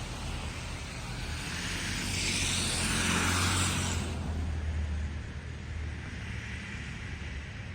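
A vehicle passing by: a low engine rumble and a broad tyre hiss swell to a peak about three seconds in, then fade away.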